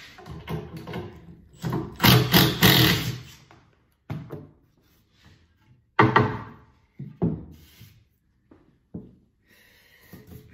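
Timber strip and tools being handled on a workbench: a run of knocks and rattles, a loud noisy burst about two seconds in, and a sharp wooden thunk about six seconds in as the long strip is lifted and moved, then a few lighter knocks.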